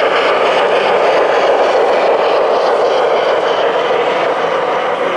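Large-scale model train running along its track: a steady, loud rolling noise of wheels on rail.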